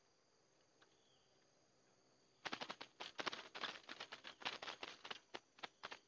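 Bulbuls making a rapid run of harsh, scratchy clicks and rattles, starting about two and a half seconds in and going on to the end. Before that, a faint short chirp about a second in.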